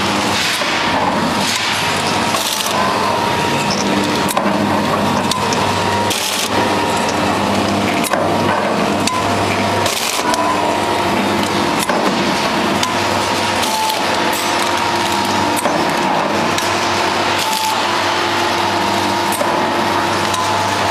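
Vertical form-fill-seal powder packaging machine running: a steady mechanical hum and whine with frequent clicks, and a short rush of noise every few seconds as it cycles.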